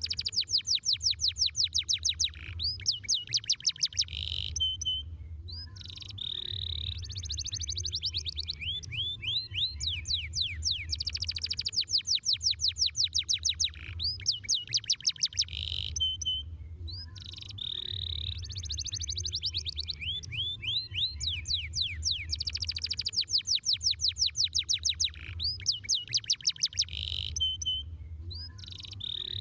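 Domestic canary singing, a rolling song of very fast trills: phrases of rapid repeated notes lasting a few seconds, with brief pauses between them, over a low steady hum.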